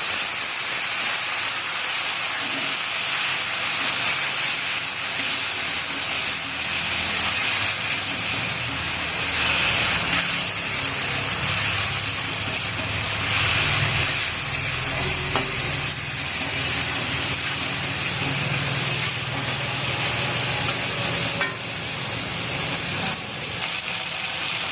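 Potatoes and radishes in a spiced tomato masala sizzling in hot oil in a pan with a little water added, stirred with a spatula as the masala is sautéed down. The sizzle is a steady hiss, with a few light scrapes and clicks of the spatula.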